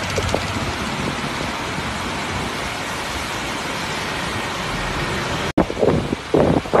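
Heavy rain falling steadily. About five and a half seconds in, a sudden cut gives way to louder, uneven gusts of wind buffeting the microphone.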